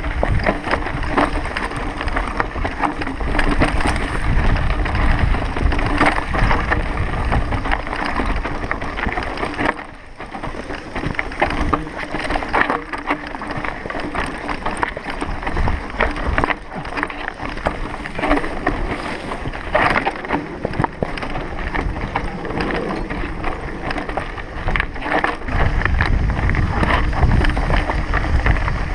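Mountain bike riding fast down a rocky singletrack: tyres crunching over loose stones and the bike rattling and clattering with every bump, with wind rumbling on the microphone.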